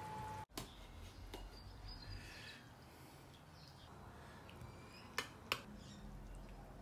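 Quiet background with two sharp clicks about a third of a second apart, a little past halfway.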